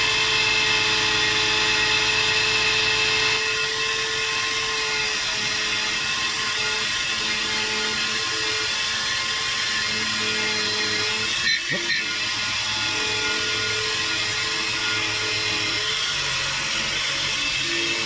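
DEFU 368A key cutting machine running, its spinning cutter milling the cuts into a key blank: a steady motor whine over a scraping hiss, with a brief knock about eleven and a half seconds in.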